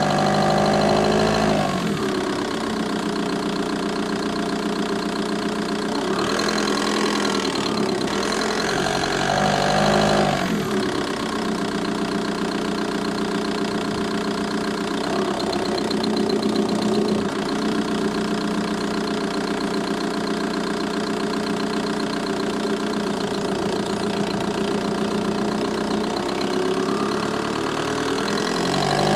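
VW Bora 1.9 TDI four-cylinder diesel engine idling with a ticking from the engine bay, blipped briefly a couple of times in the first half and again at the end.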